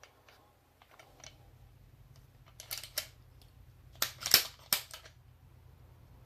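Sharp metal clicks and clacks of a T15 paintball marker's bolt and receiver parts being worked by hand, with a few faint ticks first, then a cluster of clicks about two and a half seconds in and a louder cluster about four seconds in. The bolt is sticking and does not slide out easily.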